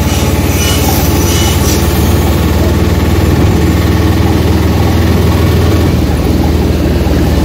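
Steady low rumble of a vehicle's engine and road noise, heard from aboard the moving vehicle.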